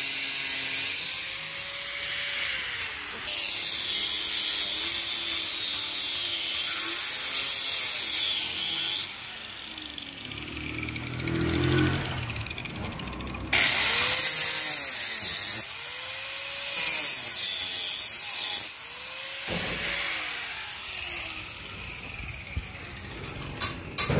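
Angle grinder with a cutting disc cutting through the steel casing of a motorcycle exhaust muffler in several passes, a loud hissing grind each time the disc bites. Between cuts the motor's pitch rises and falls as it spins up and runs down, and a few sharp knocks come near the end.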